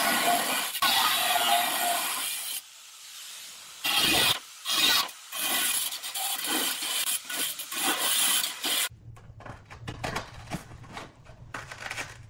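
Angle grinder with a diamond blade cutting a notch into a ceramic tile in several short passes, loud while the blade bites into the tile and easing off between passes. About nine seconds in the cutting stops abruptly, leaving a faint low hum and a few light knocks.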